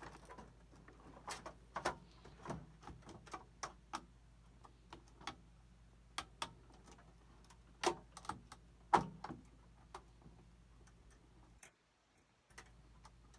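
Irregular clicks and knocks of a graphics card being worked and pushed into the motherboard's expansion slot inside a PC case, with two louder knocks near the middle.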